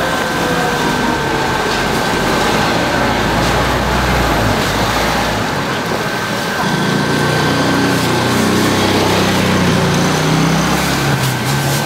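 A small engine running steadily under loud, even background noise, with a deeper engine drone coming in about halfway through.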